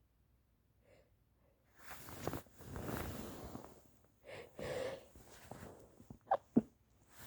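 A person with a stuffy head cold breathing heavily and noisily through a blocked nose in long drawn breaths. Near the end come two short, sharp bursts a fraction of a second apart.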